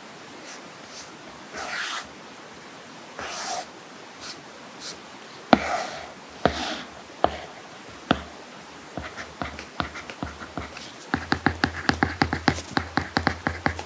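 Apple Pencil tip tapping and sliding on an iPad screen fitted with a paperlike matte protector: scattered single taps and a few short scratchy strokes, then near the end a quick run of ticks as handwriting is written.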